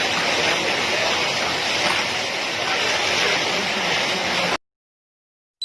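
Steady rush of heavy rain and running water, which cuts off suddenly about four and a half seconds in, followed by a brief click near the end.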